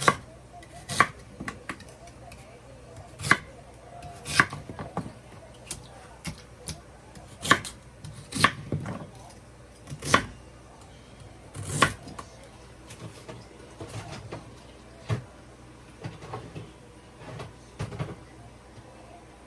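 Kitchen knife cutting on a cutting board: sharp knocks at an uneven, unhurried pace, about one a second at most.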